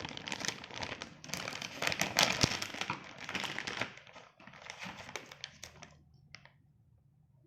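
Foil-laminated stand-up snack pouch being handled, crinkling and crackling for about four seconds, then again for about a second after a short pause, with one brief crackle near the end.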